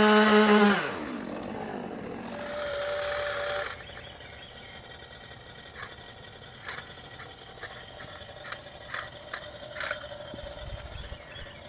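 Two-stroke chainsaw engine running at a steady high speed, then dropping off and winding down about a second in. A shorter steady whine with hiss follows briefly, after which only faint outdoor background with scattered light clicks remains.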